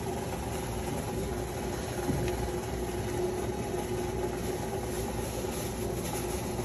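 Desktop banknote counting machine running a stack of bills through, a steady mechanical whir.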